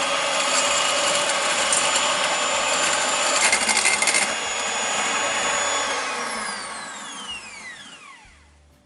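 Electric hand mixer running at speed, its twin beaters whipping egg whites and sugar into stiff peaks, with a brief clatter about three and a half seconds in. About six seconds in it is switched off and its whine falls in pitch as the motor spins down.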